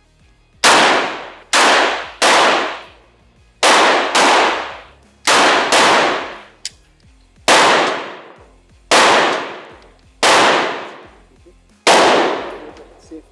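Rifle gunfire: eleven single shots at uneven intervals, roughly one a second. Each is a sharp crack that trails off in a long echo.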